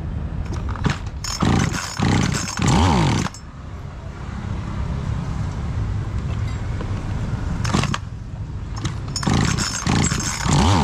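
Noker 688 chainsaw's recoil starter being pulled, three quick pulls near the start and three more near the end, each a rising-then-falling whir as the cord spins the engine over, primed with fuel squirted straight into the carburetor. A steady low hum runs underneath.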